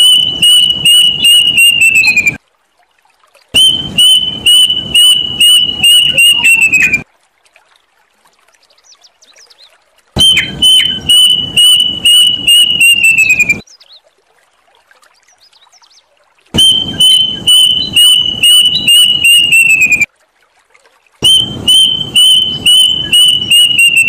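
Plaintive cuckoo calling: loud phrases of rapid whistled notes on one pitch, each lasting about three seconds and dropping in pitch at its end. Five phrases come one after another, with pauses of one to three seconds between them.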